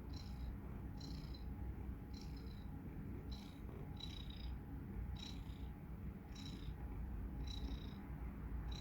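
Domestic cat snoring: a soft low rumble with a faint high whistle on each breath, about once a second.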